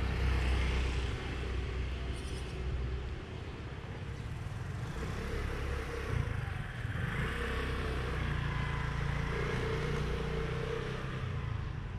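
Motor scooter riding past close by, its engine loudest in the first second, then steady street traffic hum with another vehicle's engine coming in louder about seven seconds in.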